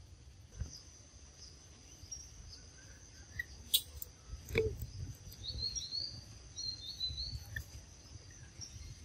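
Forest ambience: a steady, high insect drone, with small birds chirping in short runs of quick notes in the second half. Two sharp clicks around the middle are the loudest sounds.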